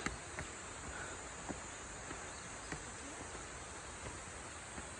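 Faint, steady high-pitched insect chorus in the forest, with a few soft footsteps on stone steps.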